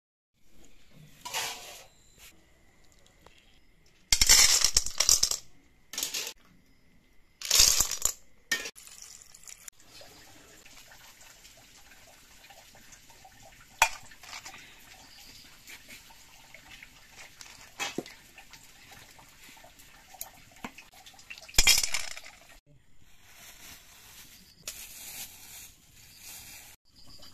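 Short bursts of crunching and rattling with a few sharp single clicks, from food handled by hand: rice grains ground with a stone pestle in a stone mortar, and snail shells clinking against each other as the heap is handled.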